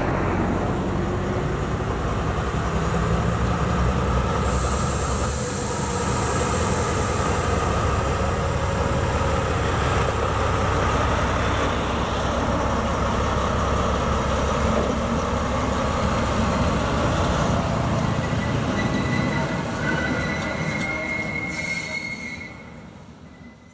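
Diesel locomotive in OHE Cargo livery rolling slowly past, its engine running with a steady low drone. Near the end a thin, high wheel squeal rises over it.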